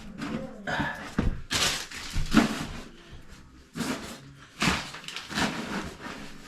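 Several short, irregular bumps and rustling noises, like things being handled and set down.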